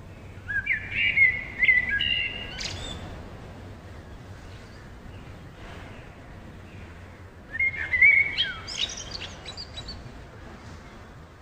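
Bird song in woodland: two bursts of quick chirps and short whistled notes, one starting about half a second in and the other about seven and a half seconds in, over steady background noise.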